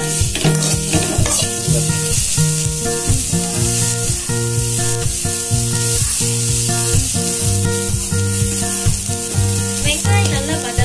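Sliced onions sizzling in hot oil in a pan, stirred with a metal ladle. Background music with steady low notes plays alongside.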